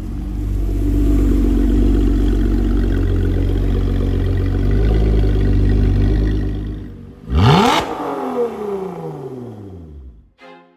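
Lotus Emira engine and exhaust running steadily with a deep rumble, then a sharp rev about seven seconds in, the loudest moment, with the revs falling away over the next few seconds until it fades out.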